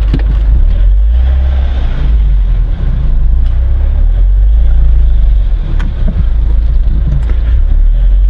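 Car engine and driving rumble heard from inside the cabin as the car moves off slowly and turns, a heavy steady low rumble with a couple of sharp clicks.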